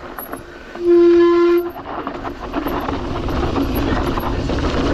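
Mountain bike brakes squealing: one loud, steady, horn-like squeal lasting just under a second, about a second in. Under it, the rattle and rumble of the bike rolling over a rough dirt trail runs on.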